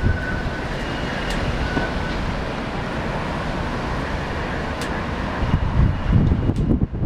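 Bora windstorm in gusts of up to 120 km/h: a steady, loud rushing of wind, with low buffeting on the microphone that grows near the end.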